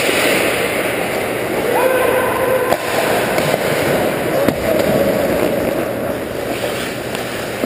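Ice hockey play close to the net: a steady scrape and hiss of skates on ice, with a few sharp clacks of sticks and puck, and a brief held shout from a player about two seconds in.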